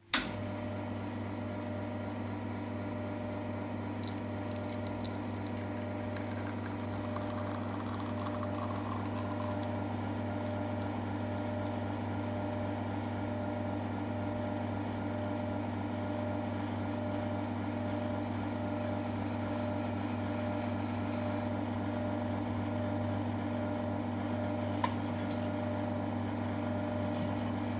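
Espresso machine's pump switched on with a click and running as a steady hum while extracting a shot, with a small click near the end.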